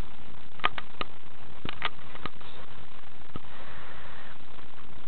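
Scattered small, sharp clicks and taps, about seven of them, mostly in the first two and a half seconds, over a steady low hiss, with a soft brief rustle past the middle.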